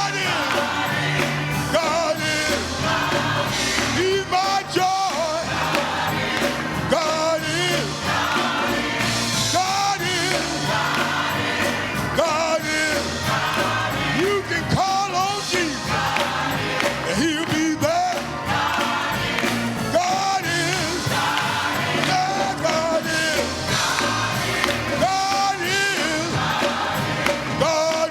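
Live gospel music: voices singing with wavering, held notes over a steady band accompaniment with a regular beat.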